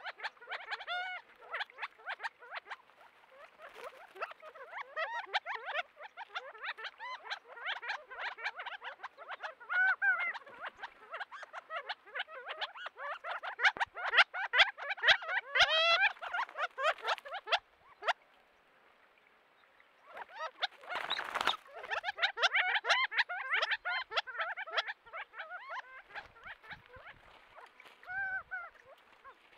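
A covey of Gambel's quail calling: many short notes from several birds at once, chattering on almost without a break. About two-thirds through, the calls pause for about two seconds, and a brief rustling burst follows.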